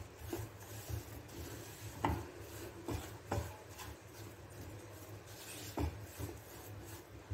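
Spatula scraping and turning a thick mass of besan roasting in ghee in a non-stick kadhai, with a few sharper knocks of the spatula against the pan. A low steady hum runs underneath.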